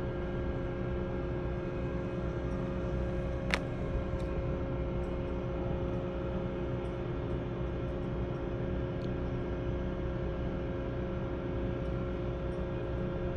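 Drilling rig machinery running steadily: a continuous low engine rumble with a constant hum over it, and a single sharp click about three and a half seconds in, while a drill pipe is being lifted.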